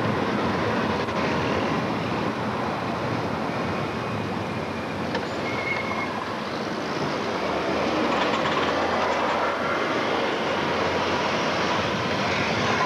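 A train or metro car running steadily, with a short high squeal about five and a half seconds in.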